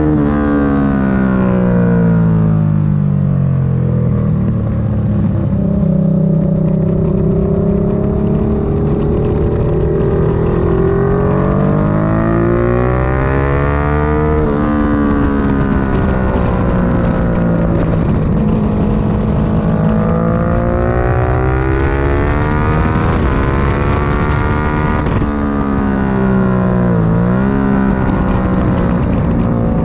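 Sport motorcycle engine running hard on track, heard from a camera on the bike. Its pitch climbs and falls several times as the bike accelerates and slows for corners, with a few sudden drops in revs.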